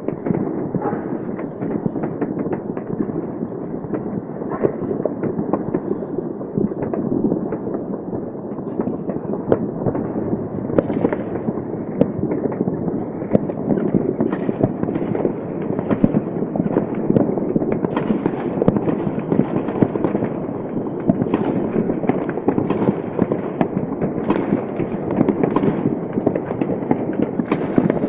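Fireworks and firecrackers going off all at once across a city on New Year's night: a dense, unbroken crackle of countless bangs with no pause.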